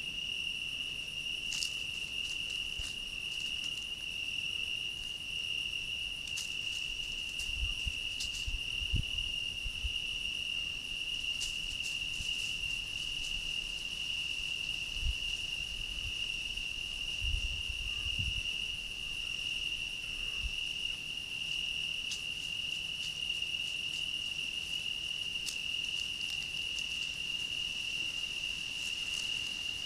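Steady, unbroken trilling of crickets at night, held at one high pitch, with a few faint low thumps around the middle.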